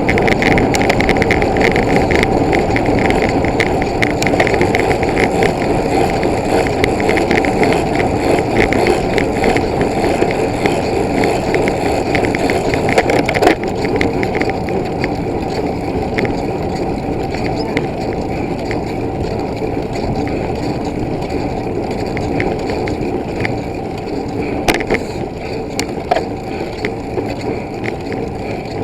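Tyres rolling fast over a rough dirt or gravel trail: a steady rumble of noise with constant rattling clicks, and a couple of sharper knocks about 13 and 25 seconds in.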